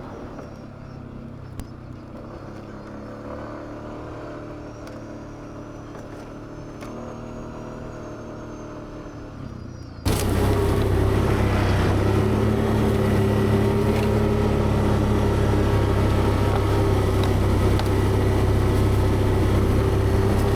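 ATV engine running steadily at low speed on a trail climb. About halfway through the sound jumps suddenly much louder and heavier in the low end, and stays steady.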